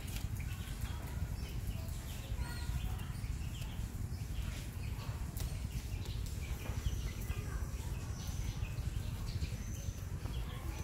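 Scattered short, high chirps over a steady low rumble.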